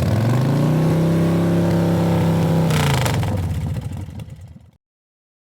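Car engine revving up, holding a steady high pitch for a couple of seconds, then dropping back and fading out, with a short hiss about three seconds in.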